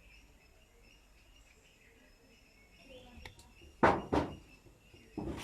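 Two sharp knocks, a third of a second apart, about four seconds in, and another just before the end, over faint bird chirps.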